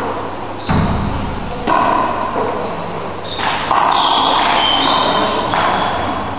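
Handball rally in a walled court: the ball smacks hard off the walls and floor about five times, each hit ringing on in the hall, with short high squeaks in between.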